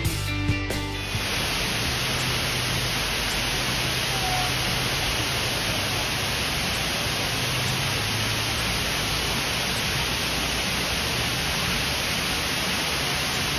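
Background music with a beat stops about a second in, leaving the steady rushing of a large artificial waterfall cascading down a rock face.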